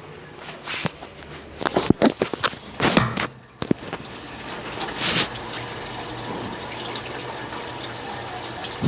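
Consul Facilite 10 kg top-loading washing machine agitating a load in its wash stage, with a Brastemp BWL09 agitator churning back and forth: water sloshes and splashes in irregular surges for the first few seconds, then settles into a steadier swishing over a low motor hum.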